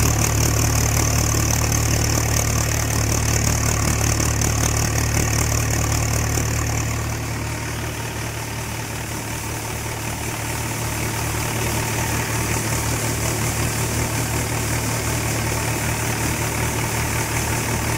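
Mahindra Yuvo 415 DI tractor's four-cylinder diesel engine running steadily at constant speed while it powers the mung bean threshing. A high hiss over the engine fades out about seven seconds in.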